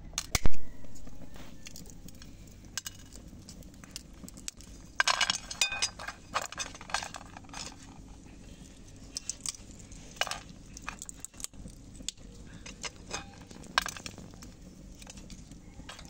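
Walnuts being opened by hand with a small metal tool, shells cracking and pieces clinking into a metal plate in scattered clicks and clatters. A sharp knock about half a second in is the loudest sound, with a busier run of clinks around five to seven seconds in.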